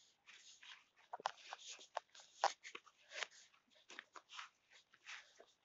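Faint, irregular rustling and swishing noises, a quick run of short soft brushes and scrapes with small gaps between them.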